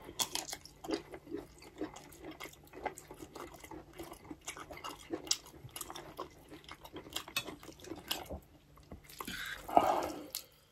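Mouth sounds of eating: chewing and biting into chicken sausage and cheese buldak ramen noodles, with soft, irregular wet clicks. There is a louder stretch about ten seconds in.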